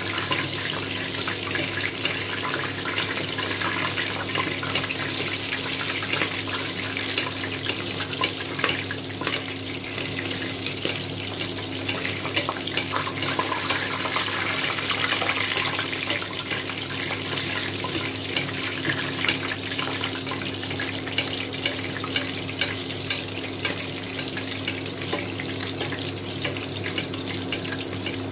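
Half a chicken deep-frying in hot oil in a stainless pot: a steady sizzle with dense crackling, while hot oil is spooned over the top. A steady low hum runs underneath.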